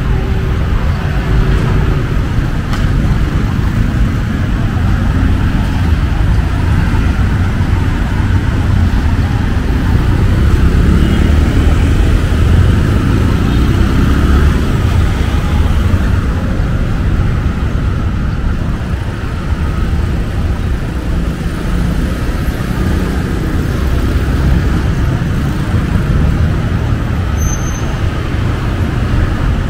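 Busy street ambience: a steady rumble of road traffic with indistinct voices of people around.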